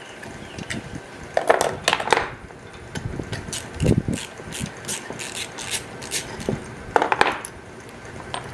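Snap ring pliers and a small metal refrigeration-compressor valve fitting clinking and clattering on a wooden workbench as they are handled: a run of light metallic clicks, with louder clanks about one and a half, two and seven seconds in.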